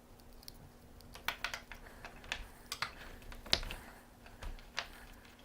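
Light clicks and knocks of Lansky honing stones in their holders and metal guide rods being handled and fitted, one after another. About a dozen sharp ticks start about a second in, with a louder knock about halfway.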